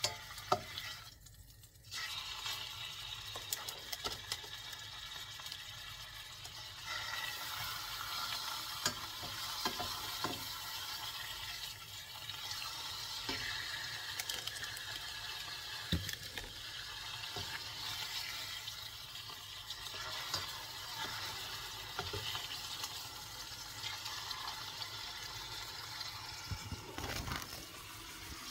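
Beef steak searing in olive oil in a stainless steel frying pan: a steady sizzle that picks up about two seconds in, with a few light clicks of tongs against the pan.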